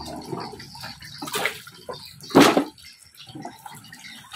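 Water sloshing and splashing as chunks of fresh coconut meat are washed by hand in a basin of water. There are a few sharper wet knocks as washed pieces are dropped into a metal bucket, the loudest about two and a half seconds in.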